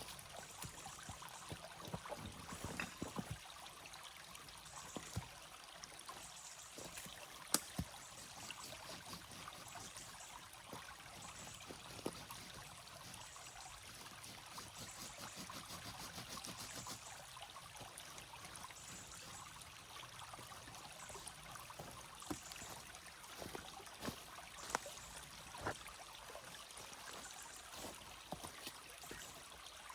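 A stream trickling and flowing steadily, with scattered light clicks and knocks over it, one sharper one about a quarter of the way through, and faint high chirps recurring throughout.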